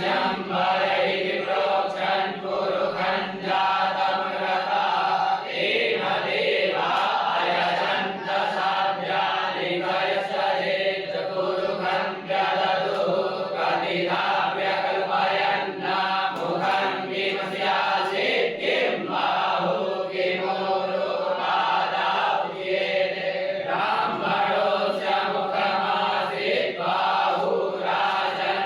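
A group of voices chanting mantras together in a continuous, unbroken recitation.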